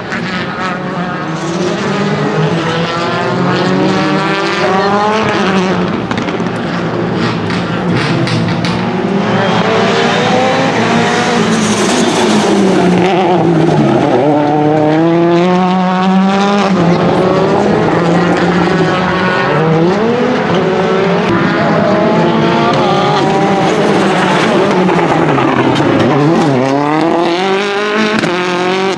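Rally car engine revving hard, its pitch climbing through the gears and dropping sharply several times on lifts and downshifts.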